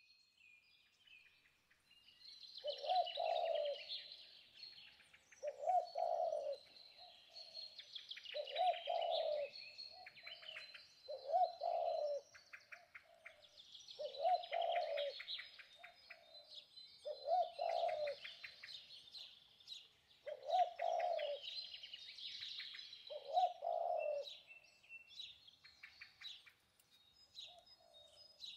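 Birdsong: dense high chirping and trilling, with a lower call from another bird repeating about every three seconds.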